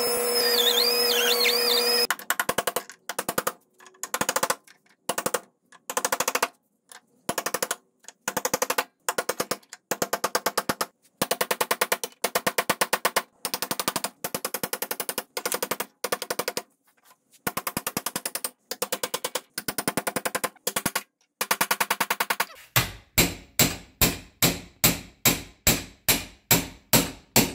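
A small air cutoff wheel whines for about two seconds, cutting into the steel centre sleeve of a Mercedes W126 lower control arm bushing, then stops. Short bursts of rapid metal-on-metal hammering follow as the remaining metal is chiseled and knocked out. Near the end come steady single hammer blows, about three a second, on a bolt that drives the bushing centre out.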